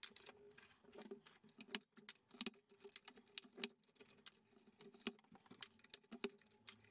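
Plastic keycaps being pulled off a Commodore Amiga 500's Mitsumi keyboard and dropped into a plastic tub: faint, irregular clicks and clacks, several a second.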